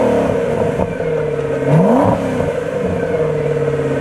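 Ford GT's supercharged 5.4-litre V8 idling through its stock exhaust, blipped once about two seconds in: the note rises quickly and drops back to a steady idle.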